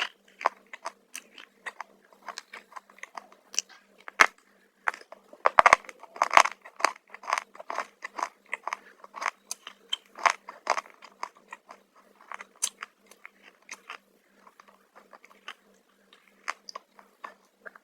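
A person biting and chewing crunchy black chips close to the microphone: rapid, irregular crunches, densest about a third of the way in and thinning out near the end.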